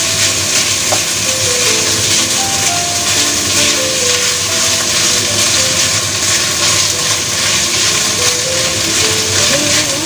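Minced meat frying in a hot wok, a steady sizzle as a wooden spatula stirs it. Background music plays a simple melody underneath.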